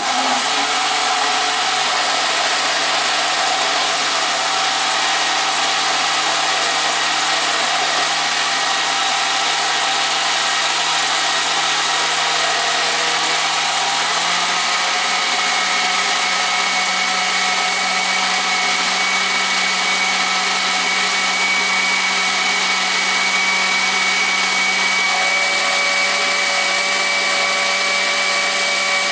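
Electric countertop blender running continuously, pureeing a green tomatillo and serrano salsa with cilantro, onion and garlic. Its motor pitch steps up slightly about halfway through.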